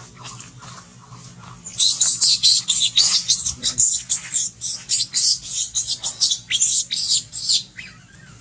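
Baby long-tailed macaque crying loudly: a fast run of shrill, high-pitched squeals, about four a second, starting about two seconds in and lasting some six seconds.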